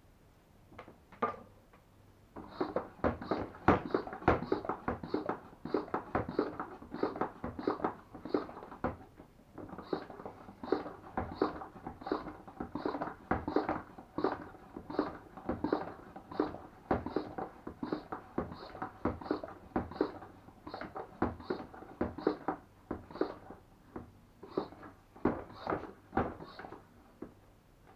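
Hand pump of a Kingfisher pump-action pressure sprayer being worked up and down, about two strokes a second, pressurising the tank. There is a brief pause about nine seconds in.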